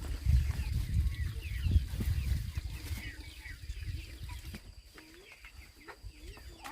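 Chickens clucking, with short high chirps through the first half and a few lower clucks in the second half, over a low rumble in the first few seconds.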